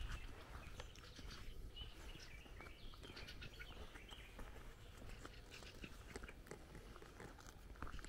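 Faint footsteps crunching on a gravel lane, with a few short bird chirps scattered through.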